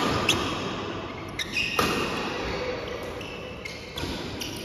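Badminton rally: racket strings hitting the shuttlecock several times at irregular intervals, with short high squeaks in between.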